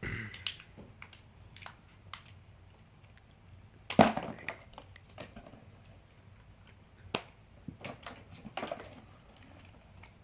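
Scattered clicks and knocks from handling a boxed toy doll and its plastic pieces and packaging, the loudest knock about four seconds in.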